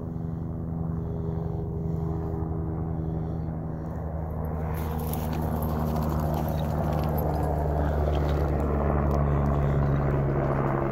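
Helicopter flying overhead, a steady droning hum that grows gradually louder as it approaches.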